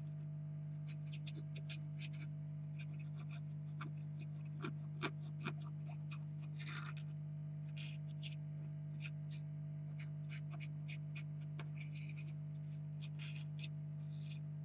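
Irregular small scratches, scrapes and clicks of hand work with small parts or tools, with three sharper clicks close together about five seconds in, over a steady low hum.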